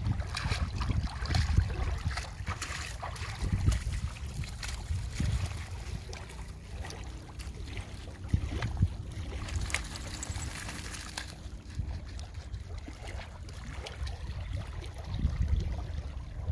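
Splashing and dripping water as a golden retriever wades out of the lake onto a gravel shore, under steady wind noise on the microphone. About ten seconds in there is a brief brighter hiss.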